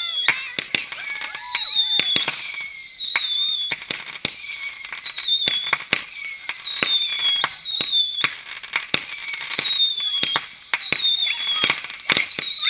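Repeating fireworks firing shot after shot: each shot a high whistle falling in pitch, about one a second and overlapping, among sharp bangs and crackling.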